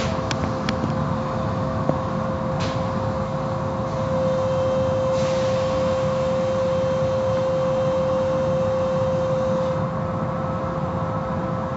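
Automatic car wash machinery running, heard from inside a car: a steady mechanical hum with a strong drone that grows louder about four seconds in and eases near the end. There are a few light clicks at the start and brief hisses of spray.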